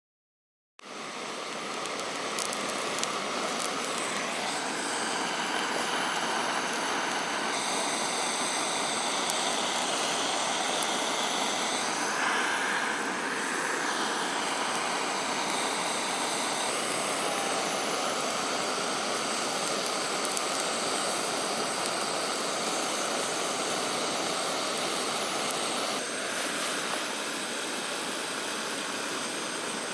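River water rushing steadily, starting abruptly about a second in, with a few faint clicks over it.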